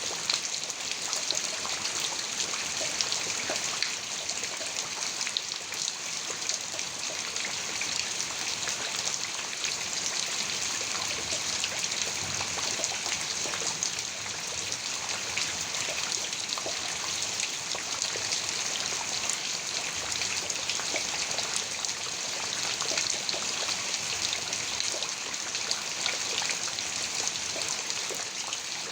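Heavy rain falling steadily, a dense hiss of countless drops striking a surface, with no thunder heard.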